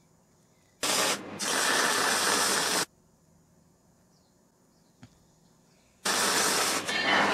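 MIG welder arc crackling as a bead is laid on a steel tube frame, in two runs: one of about two seconds with a short break near its start, then another that starts about six seconds in.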